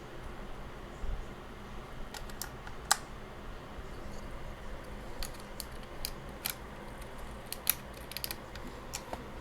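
Plastic keycaps being pressed back onto a computer keyboard: a dozen or so sharp, irregular clicks, with the loudest about three seconds in and another late on.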